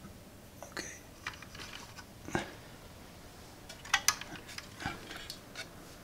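A few small, scattered clicks and knocks as wires, connectors and the plastic housing of a small dehumidifier are handled.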